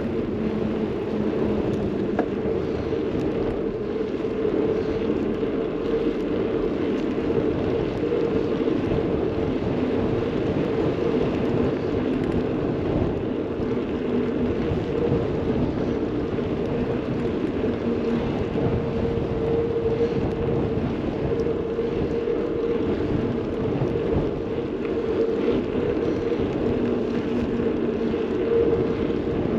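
Steady wind and rolling noise from riding a bicycle, with a constant low hum underneath.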